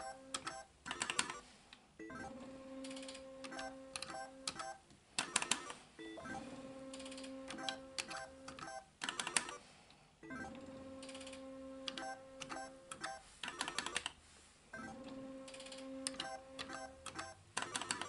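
Solex 2 pachislot machine played game after game, about one every four seconds: a steady electronic tone while the reels spin, ticks as the reels are stopped, then a quick run of sharp clicks and beeps as each game ends.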